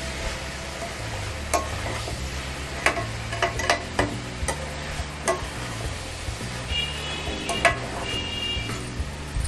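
A metal spoon stirring bitter gourd pieces in an aluminium kadai, scraping and knocking against the pan in irregular clicks, over the sizzle of the vegetables frying in oil without water.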